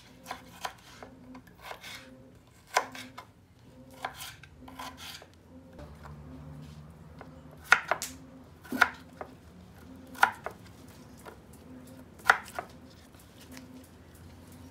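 Kitchen knife cutting raw potatoes and carrots on a wooden cutting board: irregular sharp knocks of the blade striking the board, a second or so apart.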